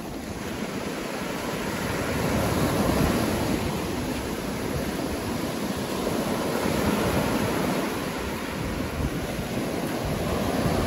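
Ocean surf breaking and washing up the beach, a steady rushing that swells and eases, with wind buffeting the microphone.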